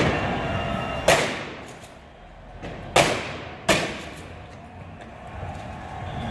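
Three sharp, loud bangs of firecrackers going off, each with a trailing echo, about a second in and then twice more close together near three and four seconds in, over a steady rumbling street din.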